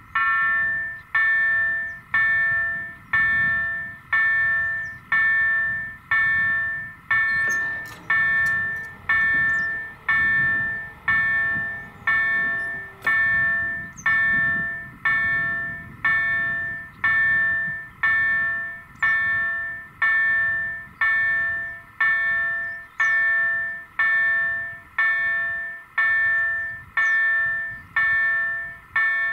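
Electronic crossing bell of a Polish SPA-4 automatic level crossing (EDE-1 sounder with EDG-2005 tone generator), striking about once a second. Each stroke is a bright multi-tone chime that fades before the next. It starts right at the beginning and is the warning that a train is approaching.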